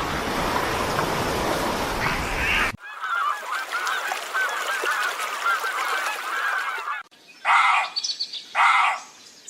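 A loud rushing noise for the first few seconds. It gives way to a flock of birds chattering, many short wavering calls at once. Near the end come two loud honk-like calls about a second apart.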